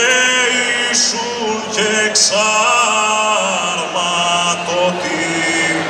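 Men singing a Cretan rizitiko a cappella into microphones: long held, slowly ornamented notes, broken by short breaths between phrases.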